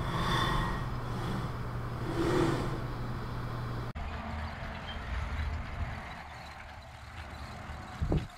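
A collaborative robot arm's joint motors whirring in swells as the arm moves, over a steady low hum. After a sudden cut about four seconds in, a small wheeled robot rolls along a concrete sidewalk with a low rumble, and a short thump comes near the end.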